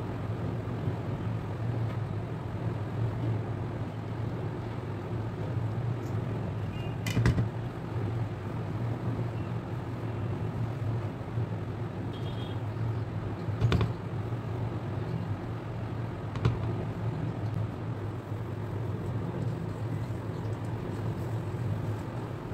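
Steady low background rumble, with three short sharp knocks spread through it.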